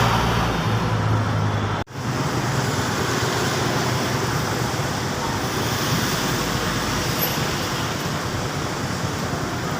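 Steady road traffic noise from a city street, a continuous wash of passing vehicles, with a brief break about two seconds in.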